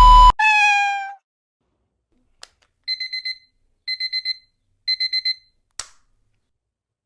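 Digital alarm clock beeping: three bursts of four quick high beeps, about a second apart. It follows a short falling electronic tone that dies away about a second in.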